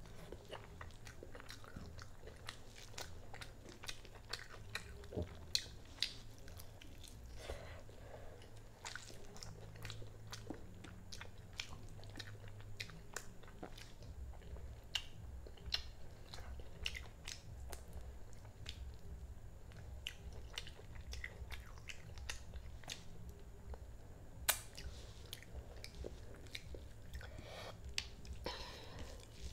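Eating sounds from a person chewing and biting mouthfuls of turmeric rice and chicken curry eaten by hand: a steady run of small mouth clicks, with one sharper click late on. A faint low hum runs underneath.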